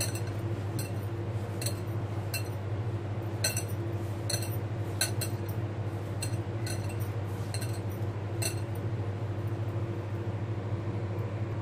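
Metal bangles and a hand clinking against a glass mixing bowl as crumbly khoa-and-maida dough is mixed by hand: irregular light clinks, a dozen or more, over a steady low hum.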